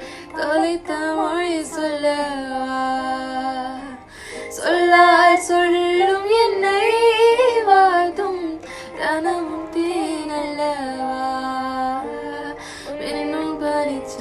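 Background music: a Tamil song with a woman singing a flowing melody over instrumental accompaniment.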